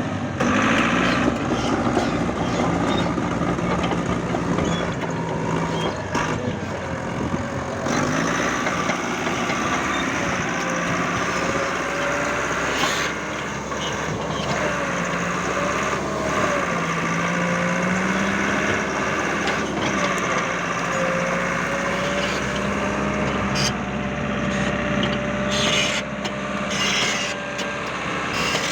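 Caterpillar D5K crawler dozer's diesel engine running, its pitch shifting up and down, with a wavering whine above it and a few sharp clanks.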